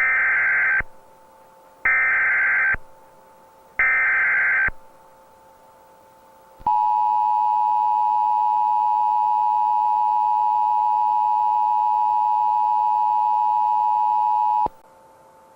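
Emergency Alert System alert tones: three short buzzy data bursts (the SAME header) about two seconds apart, then the steady two-tone attention signal held for about eight seconds before cutting off sharply. Together they mark the start of a new emergency alert broadcast.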